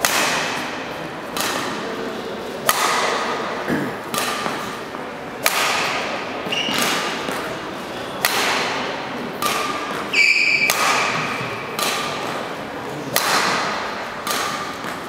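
Badminton racket striking the shuttlecock in a backhand drill, a sharp crack about every 1.3 seconds, echoing in a large sports hall. A brief squeak sounds about ten seconds in.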